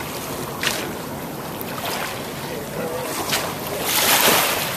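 Wind on the microphone over water lapping, with a few short sharp hits and a louder rush of wind about four seconds in.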